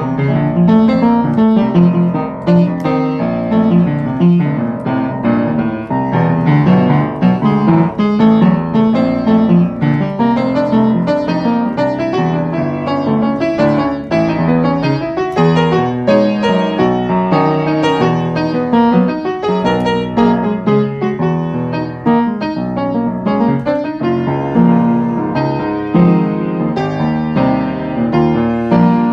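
Piano music playing without a break, many notes in quick succession.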